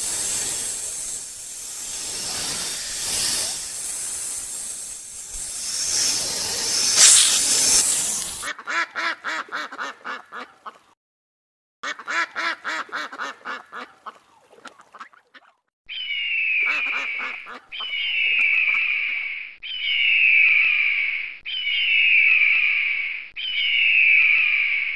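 Rushing, hiss-like noise for about eight seconds. Then two stretches of fast pulsing animal calls, split by a second of silence. From about sixteen seconds in, one animal call repeats about every two seconds, each call falling in pitch.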